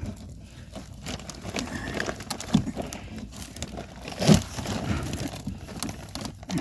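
Crunching and scraping of old wood as a pry bar works at a floor joist and its nails, with a few sharp knocks, the loudest about four seconds in.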